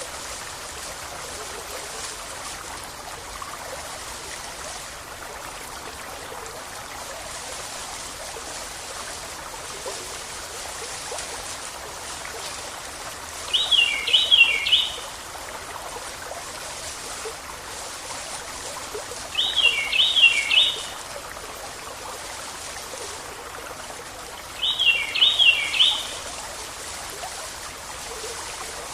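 River water flowing and trickling steadily, while a bird sings the same short phrase of quick high notes three times, about every five to six seconds.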